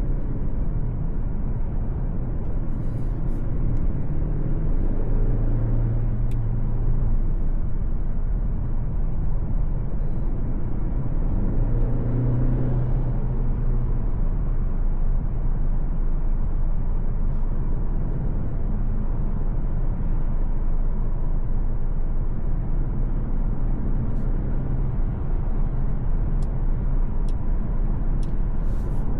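Steady driving noise of a Mercedes-Benz C 200 on the road: the 1.5-litre four-cylinder petrol engine under a continuous rumble of tyres and road. The engine note swells twice, about five seconds in and again near the middle.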